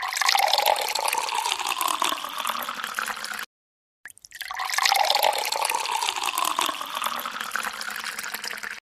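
A stream of water poured from a plastic bottle, splashing onto a hard concrete surface, in two pours with a sudden break about three and a half seconds in.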